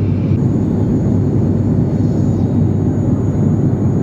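Airliner cabin noise in cruise: a steady, loud drone of the engines and airflow, with a constant low hum.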